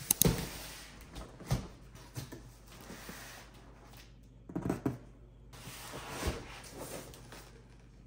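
Cardboard shipping box being handled on a wooden floor: a few knocks and thumps, the sharpest right at the start and a cluster about four and a half seconds in, with rustling between.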